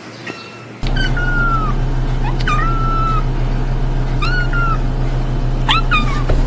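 Kitten meowing: four short, high-pitched meows about a second and a half apart, over a steady low hum.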